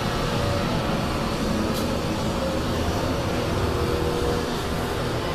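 Cummins ISX inline-six diesel engine running steadily on a test stand, a constant rumble with no change in speed.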